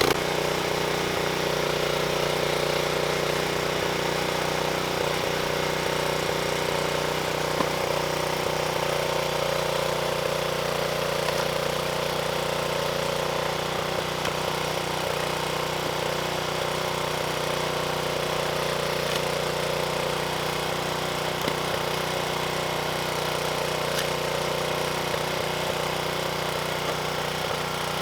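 A 13-ton log splitter's small gas engine running steadily, with a few brief knocks over it.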